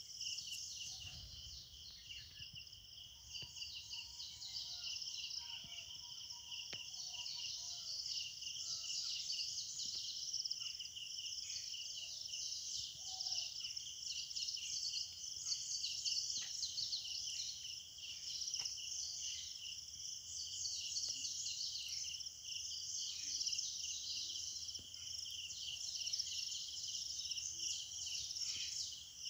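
A steady, high-pitched chorus of insects, dense and continuous, with faint scattered bird calls beneath it.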